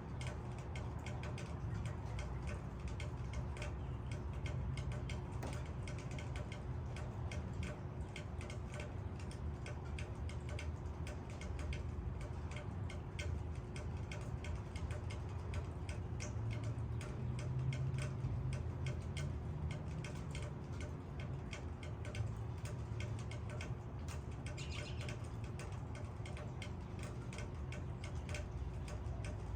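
Raindrops dripping and pattering on leaves, many small irregular ticks over a low steady rumble of rain.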